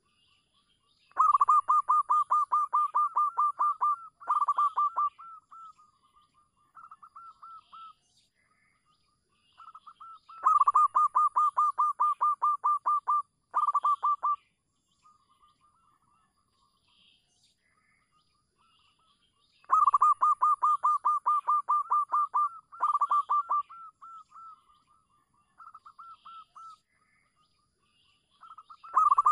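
Zebra dove (perkutut) cooing: bouts of rapid staccato coo notes, about eight a second, each bout lasting about three seconds and followed by a shorter, softer phrase, the pattern repeating roughly every nine seconds.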